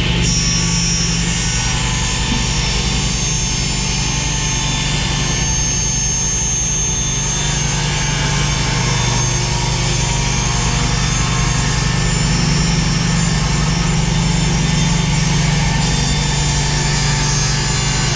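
Table saw motor and blade running steadily at full speed, a constant hum with no clear change in load.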